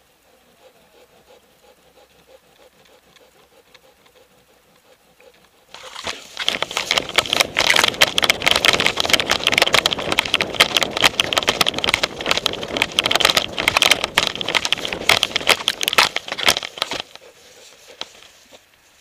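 Rapid scraping, rustling and knocking right at a dog-mounted action camera as the Doberman moves, starting about six seconds in and stopping a couple of seconds before the end.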